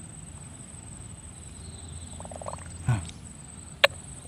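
A sharp wet pop near the end from a swamp eel burrow: the 'crot' of an eel snapping at the bait, the sign that an eel is in the hole. A short dull thump comes about three seconds in, over the steady high drone of crickets.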